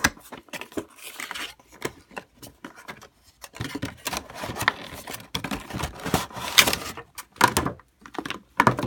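A Funko Pop vinyl figure's cardboard box and plastic packaging being opened by hand: irregular rustling, scraping and clicking of cardboard and plastic, busier in the second half.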